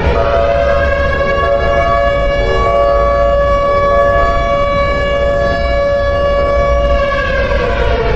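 Warning siren sounding a loud, steady chord of several tones, which begins to wind down with falling pitch about seven seconds in, over a low rumble.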